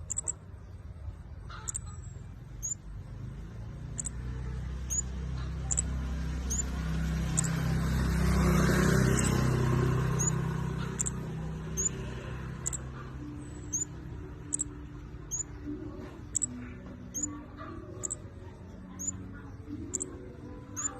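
Flowerpecker (burung cabe-cabe) giving repeated short, very high-pitched chirps, a little more than one a second. A low rumble swells up through the middle and fades away.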